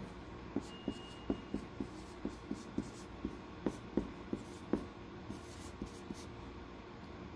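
Dry-erase marker writing numbers on a whiteboard: a run of short taps and scratchy strokes of the felt tip against the board, stopping about six seconds in.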